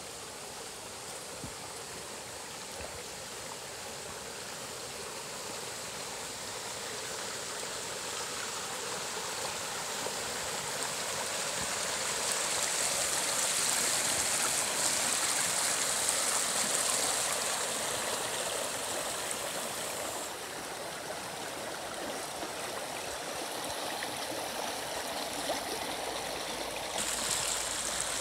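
Shallow woodland stream rippling and gurgling over stones, a steady rush of water that grows louder for several seconds midway, where it runs faster over a stony riffle, then eases.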